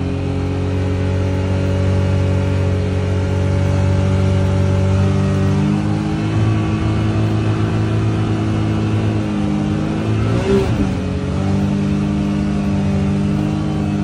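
Side-by-side UTV engine running at a steady speed while driving along a snowy trail, heard from inside the cab. There is a brief rise and fall in pitch about ten and a half seconds in.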